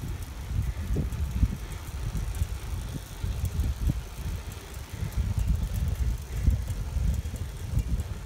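Wind buffeting the microphone of a camera on a moving bicycle: an uneven, gusty low rumble.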